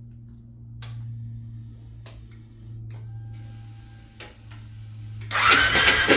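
Triumph Bobber 1200 parallel-twin turned over on its electric starter with the spark plugs out. The cranking starts suddenly about five seconds in and runs fast and even, with no firing. It is done to pump oil through the newly fitted turbocharger oil feed and check that it drains. A thin high whine and a few light clicks come a couple of seconds before.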